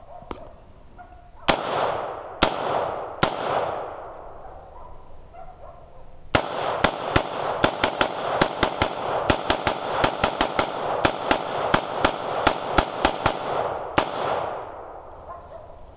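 An 11.5-inch 5.56 AR pistol firing: three single shots about a second apart, then after a pause a fast string of about two dozen shots, three to four a second, each ringing off into echo. The magazine is run empty.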